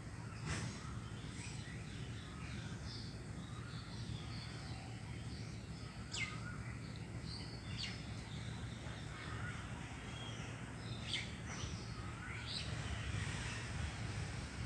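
Birds calling, including crow caws: scattered short calls and chirps over a steady low background rumble.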